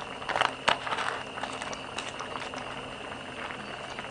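Sichuan hotpot broth with duck blood and enoki mushrooms boiling in a stainless steel pot, a steady bubbling with many small pops and crackles, a few louder pops about half a second in.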